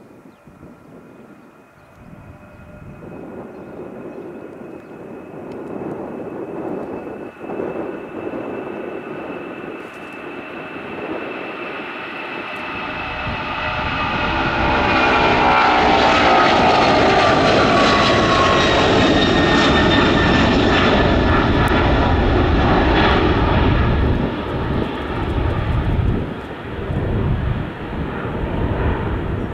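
Airbus A310 twin-engine jet at takeoff power: a steady turbofan whine that builds into a loud roar with a deep rumble as the airliner climbs past, its whine falling in pitch as it goes by about halfway through, then easing off as it climbs away.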